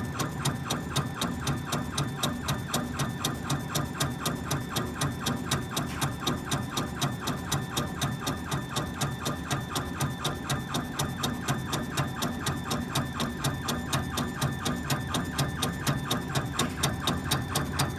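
Laser engraver running a raster engraving job, its stepper-driven head sweeping back and forth in an even beat of about four to five strokes a second. Under it is the steady hum of the fume exhaust fan.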